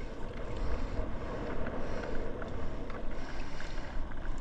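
Wind buffeting the microphone over open sea, with water washing against the hull of a small outrigger boat and a few faint knocks as a hooked tuna and the line are handled.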